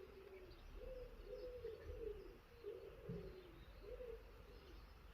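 Pigeon cooing faintly in a run of low, repeated coos.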